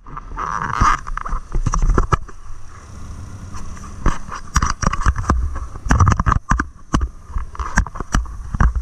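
Yamaha snowmobile under way over rutted, tracked snow: the engine runs with a low rumble and a steady higher whine, broken by many sharp, irregular knocks as the sled and its mounted camera jolt over the ruts.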